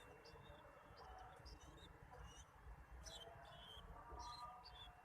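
Long-tailed shrike chick giving short, high begging chirps, repeated irregularly many times, while being fed.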